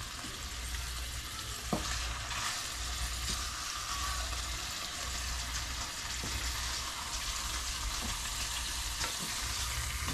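Catfish fillet frying in hot olive oil in a small pan: a steady sizzle, with one light click about two seconds in.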